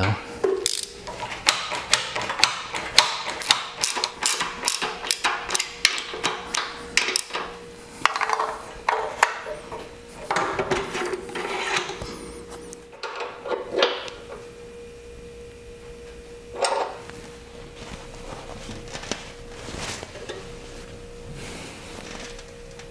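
Metal hand tools, a socket wrench among them, working on motorcycle fittings. A quick, irregular run of sharp clicks and knocks lasts several seconds, then thins to scattered knocks, with one louder knock about two-thirds of the way through.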